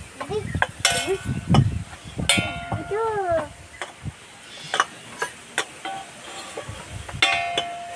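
A young child's short vocal sounds, with a few brief ringing metallic clinks.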